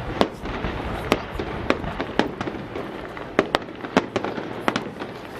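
Aerial fireworks going off: about a dozen sharp, irregularly spaced bangs over a continuous rumble and crackle.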